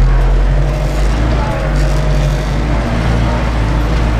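Ursus 914 tractor's diesel engine running steadily under heavy load, heard from inside the cab, as it pulls a disc harrow through heavy fallow ground.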